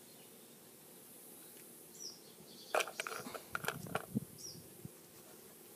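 Faint short bird chirps twice in a quiet outdoor background, with a cluster of sharp clicks and knocks about three to four seconds in.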